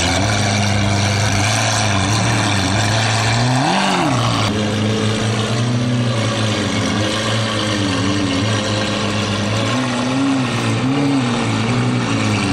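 Lamborghini Aventador SV's V12 with an Fi exhaust idling, revved once sharply about four seconds in and dropping straight back to idle, then given several light blips over the idle.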